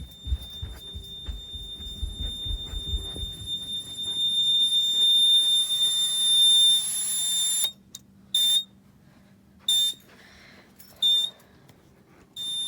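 Fire alarm sounder giving a steady high-pitched tone that cuts off about eight seconds in, followed by short beeps about every one and a half seconds. Low thumps during the first few seconds.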